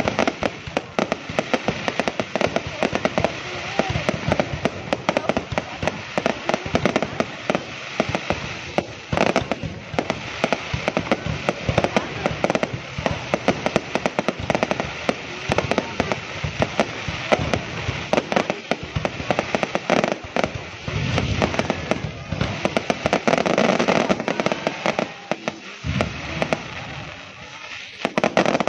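Aerial fireworks bursting overhead in rapid succession: a dense, unbroken run of bangs and crackling.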